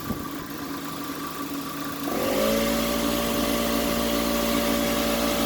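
Air compressor motor starting about two seconds in, its pitch rising briefly before it settles into a steady running hum.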